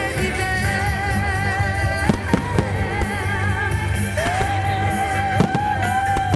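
Fireworks going off in a few sharp bangs, a cluster about two seconds in and another about five and a half seconds in. Loud music plays throughout, with a singing voice holding long wavering notes over a steady bass.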